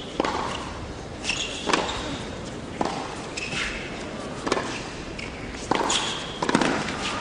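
Tennis rally on an indoor hard court: a ball struck by rackets and bouncing, a sharp hit roughly once a second with a short echo from the hall.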